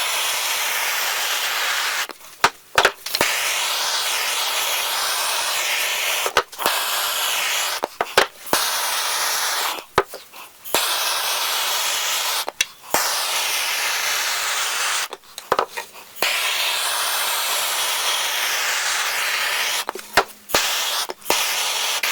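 Handheld gas torch hissing steadily as its flame scorches the wood surface to darken it, broken off for a moment about half a dozen times.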